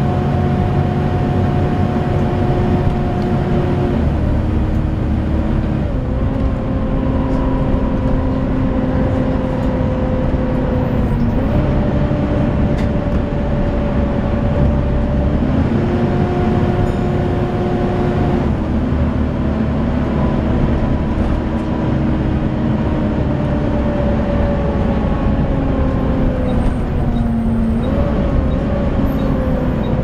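Volvo B7TL double-decker bus heard from inside while it drives: a loud, hoover-like cooling-fan whine over the engine and road rumble. The whine steps down and up in pitch several times.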